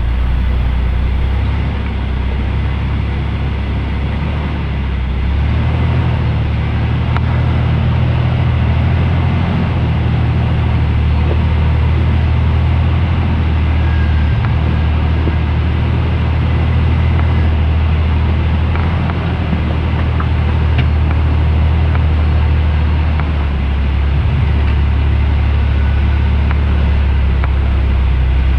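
Jeep engine running steadily at low revs, a continuous deep rumble, with a couple of faint knocks partway through.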